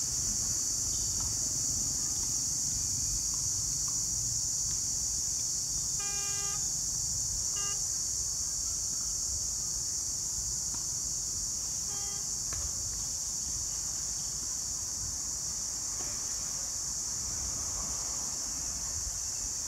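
Steady high-pitched insect drone, with short vehicle-horn toots from nearby traffic: one about six seconds in, a brief second one just after, and a third around twelve seconds.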